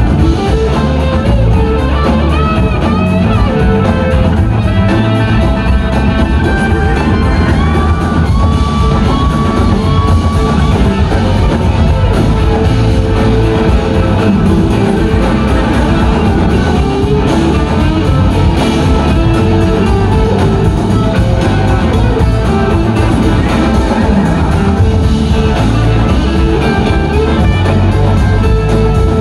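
Live rock band playing a guitar-led passage: electric guitars over a drum kit, loud and continuous, with a lead guitar line of gliding, bending notes about eight seconds in.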